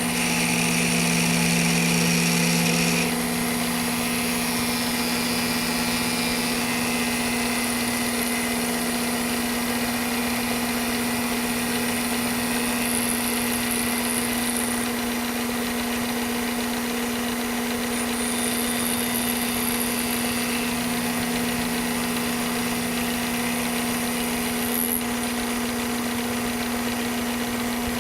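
Small two-axis milling machine running, its cutter taking a contour pass on an aluminium hand knob: a steady motor hum with a higher cutting noise that shifts as the cut goes on, a little louder for the first three seconds.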